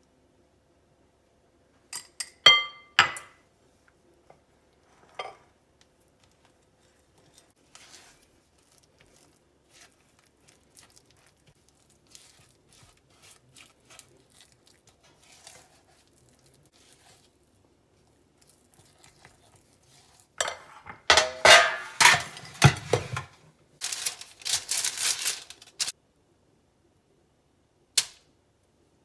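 A metal whisk clinks sharply against a small ceramic bowl a few times near the start, then dough is mixed by hand in a glass bowl with faint rustling and scraping. Near the end, parchment paper crinkles loudly as it is pulled out and laid on a metal baking sheet, followed by a single sharp click.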